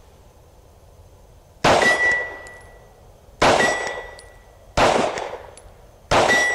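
Four 9 mm shots from a Glock 17 pistol, about a second and a half apart, the first coming about a second and a half in. Three of the shots are each followed by the high ringing ping of a steel target plate being hit at about 45 to 50 yards.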